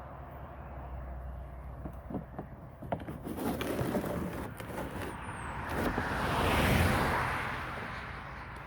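A few light knocks and clicks of handling, then a car passing by, its tyre noise swelling and fading away about seven seconds in.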